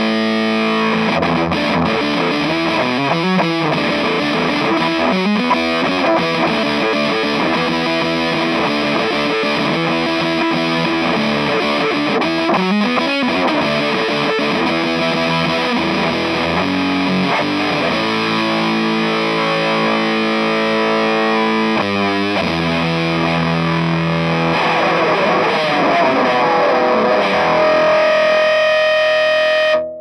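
Electric guitar played through an EarthQuaker Devices Park Fuzz Sound pedal: raw, heavily fuzzed chords and riffs, ending on a held note that cuts off suddenly.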